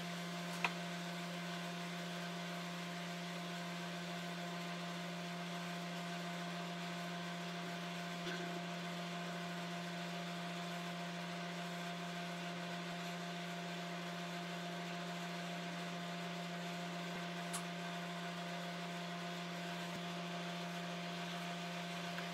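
A steady low electrical-sounding hum over a faint hiss, with a few faint, brief clicks.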